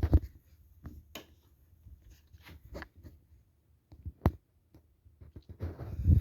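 Irregular sharp clicks and light rustling handling noise, with the sharpest click about four seconds in and a denser rustle near the end.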